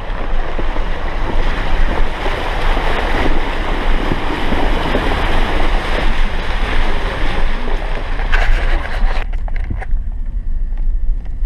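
Vehicle driving through a flooded woods road: a loud, rushing noise of water splashing under the wheels and wind buffeting an outside-mounted microphone. About nine seconds in it cuts off sharply to a much quieter engine and road rumble inside a pickup cab, with a few clicks.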